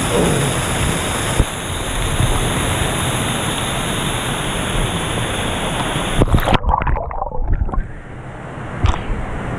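Artificial pool waterfall pouring down onto and around the camera, a loud, steady rush of falling water that cuts off suddenly about six seconds in. After that come quieter sloshing and a few splashes of pool water.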